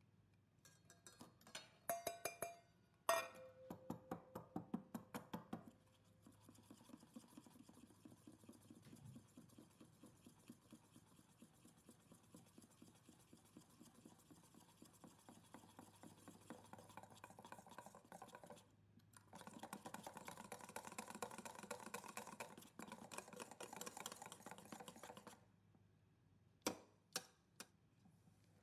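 Flour sifted through a wire-mesh sieve into a stainless steel bowl, the sieve tapped repeatedly with a brief ring of metal. Then a wire whisk stirs batter against the metal bowl in a fast stream of light ticks, which grows louder for a few seconds. A few sharp taps come near the end.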